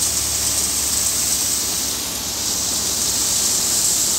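Tractor-driven Leader wheat thresher running while bundles of cut wheat are fed into its hopper: a steady rushing hiss from the threshing drum chewing through the straw, with the tractor engine's low hum underneath.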